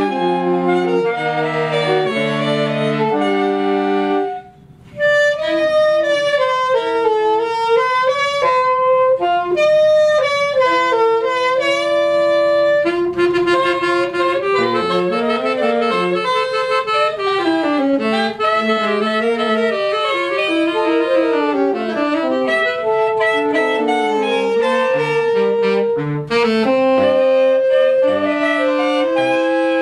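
Saxophone ensemble playing in harmony, sustained chords that break off for a moment about four seconds in, then a melody over moving accompanying lines. The soprano saxophone, a borrowed school horn that could not be tuned, sounds out of tune against the others.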